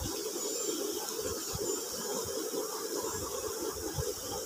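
Steady rushing background hiss with soft, irregular bumps and rustles from the phone being handled close to the microphone against cloth.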